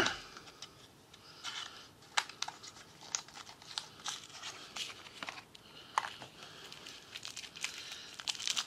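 Packaging around a replacement vape tank glass crinkling and tearing as it is handled and unwrapped, with a sharp snap right at the start and scattered small clicks.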